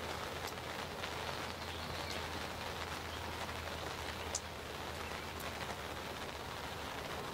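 Steady hiss of rain with scattered drops ticking, one sharper tick about four seconds in.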